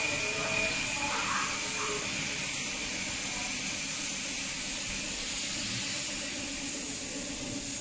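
Gravity-feed compressed-air spray gun hissing steadily as it sprays a wood finish.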